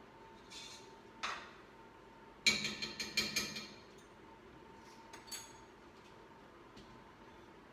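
Metal cookware clattering as a pot of quinoa is taken off the stove: a few light knocks, then a quick run of loud clanks that ring for about a second a few seconds in, and a couple more knocks after, over a faint steady high hum.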